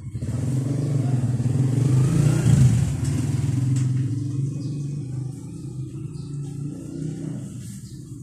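Motorcycle engine revved up from idle: the pitch climbs over the first two to three seconds, then eases gradually back down toward idle.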